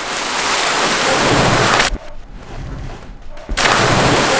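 Pool water splashing and churning, growing louder, then briefly muffled to a low rumble, then a heavy splash as a person plunges into the pool, the spray hissing as it falls back.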